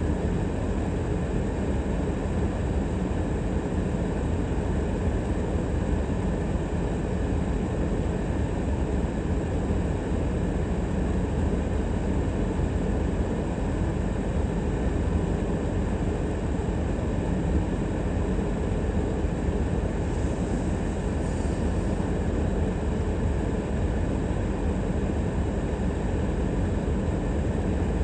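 Steady low rumble of a car driving, with road and engine noise.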